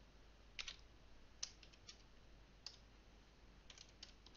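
Faint computer keyboard keystrokes: a few single key clicks spaced about a second apart, then a quick run of several near the end.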